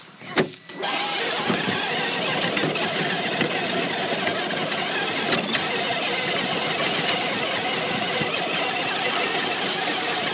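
Traxxas radio-controlled truck's motor and drivetrain running steadily as it drives, heard from a camera riding on the truck itself. A knock comes just before the motor starts up, about a second in.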